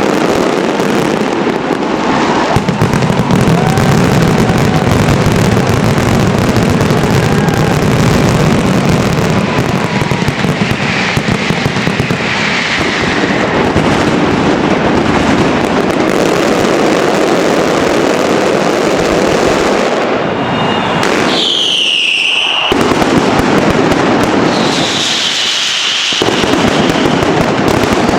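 Dense, continuous barrage of firework bangs and crackling, with high whistling fireworks cutting through several times, the strongest just past the middle.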